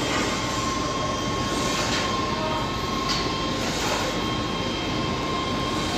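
Steady mechanical rumble with a thin continuous whine running through it.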